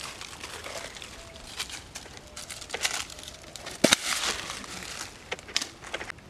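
Dry fallen leaves rustling and crackling as a live snakehead fish is handled out of a wire fish trap onto the leaf-covered ground, with a sharp double knock a little before four seconds in.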